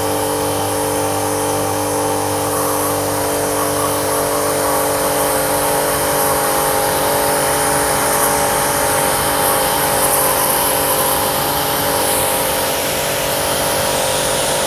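Vantro 1800 W electric pressure washer running with its gun trigger held, a steady motor hum under the hiss of the water jet spraying.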